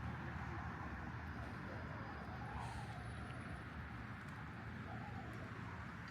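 Steady low rumble of road traffic, an even city-street hum with no single event standing out.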